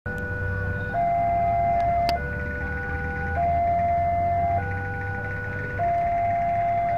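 Railway level-crossing warning alarm sounding a steady electronic two-tone signal, switching between a lower and a higher tone about every 1.2 seconds, which warns that a train is approaching with the barriers closed. A low rumble of waiting traffic runs underneath.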